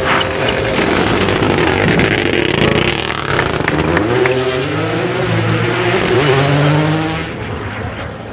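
Rally car at full throttle on a gravel stage, its engine climbing in pitch through a gear change, with tyre and gravel noise; the sound drops away about seven seconds in as it passes.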